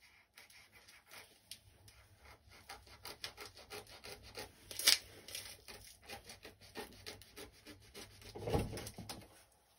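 Kitchen knife slitting the tough outer husk of a fresh bamboo shoot, a quick run of short rasping, scraping strokes. A sharp snap about five seconds in and a duller thump near the end.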